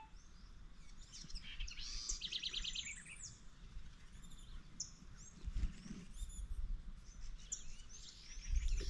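Wild birds calling and singing: scattered high chirps, with a quick trill of evenly repeated notes about two seconds in. A soft low bump about five and a half seconds in.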